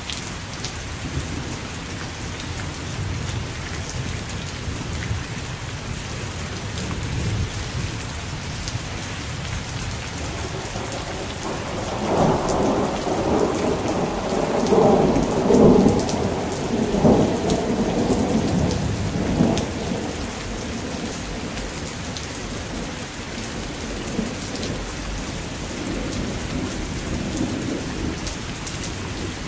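Steady rain falling, with a long roll of thunder that swells up about midway, peaks, and rumbles away over several seconds.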